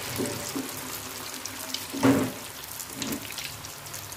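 Peyek fritters deep-frying in hot oil in an aluminium wok: a steady sizzling hiss with scattered small crackles. One brief louder sound about halfway through.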